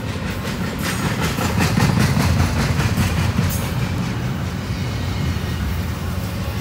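Double-stack intermodal freight train's well cars rolling past with a steady low rumble. A quick run of rhythmic wheel clacks starts about a second in and fades out about three and a half seconds in.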